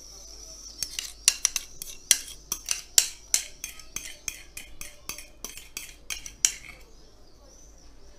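Metal cutlery clinking and scraping against a bowl and glass baking dish while a runny mayonnaise mixture is scraped out over a casserole: a quick, irregular run of sharp clinks, about three or four a second, starting about a second in and stopping about a second before the end.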